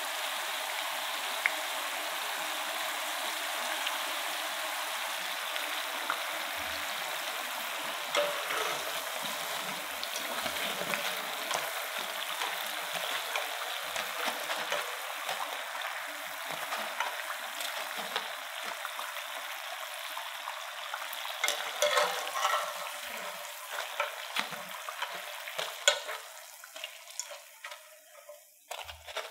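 Corn-flour-coated potato pieces deep-frying in a pan of hot oil: a steady sizzle with scattered sharp ticks that grow more frequent in the second half. The sizzle dies away over the last few seconds as the pieces come out of the oil.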